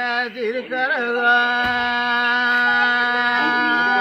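Wind-instrument music over a steady drone: the melody holds long, even notes, with short bending ornaments in the first second.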